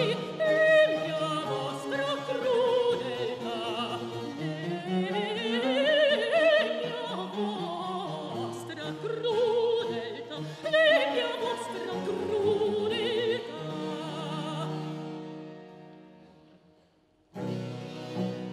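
Soprano singing a Baroque opera aria with a wavering vibrato, accompanied by cello and harpsichord. The phrase dies away to a brief near-silence, then the harpsichord and cello start playing again about a second before the end.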